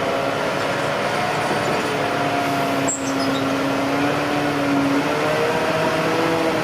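Heavy construction machine's engine running steadily, its pitch drifting slowly up and down, with one short sharp click about three seconds in.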